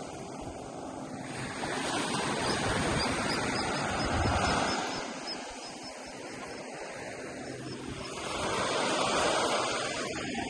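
Ocean surf washing onto a beach, swelling twice as waves break and easing between them. A faint run of high, evenly spaced peeps, about four a second, sounds during the first swell.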